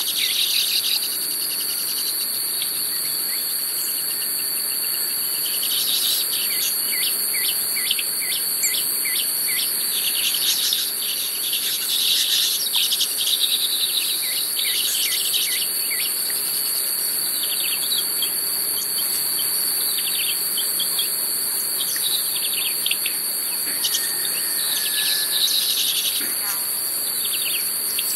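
Baya weavers chattering in bursts of rapid chirps over a steady, high-pitched drone of insects.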